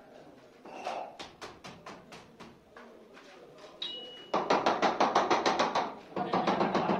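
Rapid tapping and knocking from a hand tool worked at the foot of a granite door frame during fitting: a slower run of light taps, then two loud runs of quick strikes, about nine a second.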